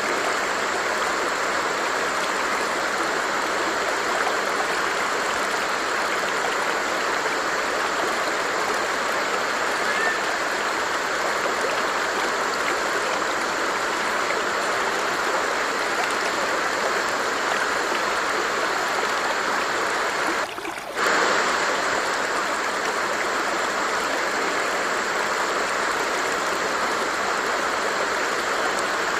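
Flowing stream: a steady, even rush of running water, with a brief dip in level about two-thirds of the way through.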